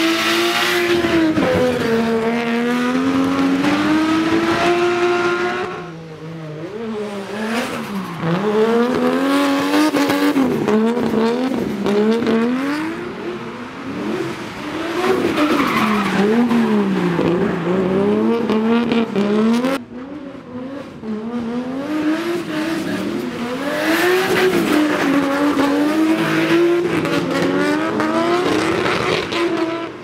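Nissan Cefiro's RB25 2.5-litre straight-six revving hard, its pitch swinging up and down constantly as the car drifts, with tyres squealing. The sound drops away suddenly about six and twenty seconds in, then picks up again.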